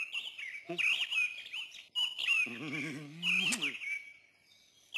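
Small songbirds chirping and twittering in quick, high whistled notes. Midway through, a low wavering hum joins in for about a second.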